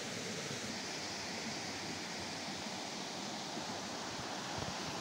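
Steady rush of storm runoff water flowing down a debris-strewn road: an even, unbroken noise.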